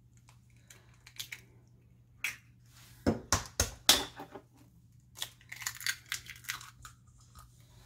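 Two eggs cracked open over a stainless steel bowl, one after the other: a few sharp cracks of shell about three seconds in, then a second run of crackling shell about two seconds later.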